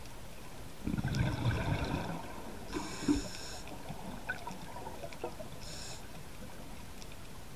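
Scuba diver breathing through a regulator underwater: a burst of exhaled bubbles about a second in, then the hiss of an inhalation around three seconds, and a short hiss near six seconds.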